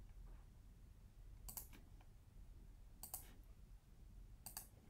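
Computer mouse clicking three times, about a second and a half apart, each a quick press-and-release, over a faint low hum.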